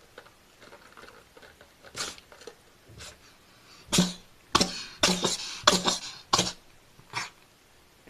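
A cat sneezing: a few faint sneezes, then a rapid fit of about six sharp sneezes in quick succession from about halfway through.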